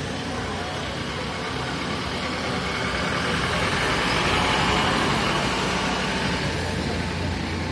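A van's engine running as it drives past close by, growing louder to a peak about halfway through and then easing off, over general street noise.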